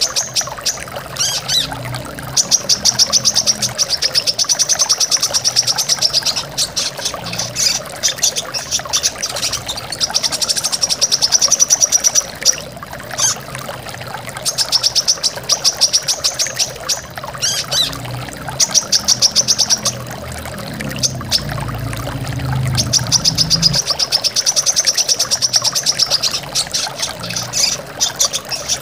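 Brown-throated sunbird song: long runs of rapid, high, sharp repeated notes lasting a few seconds each, with short breaks between them. Steady rushing waterfall water runs beneath the song.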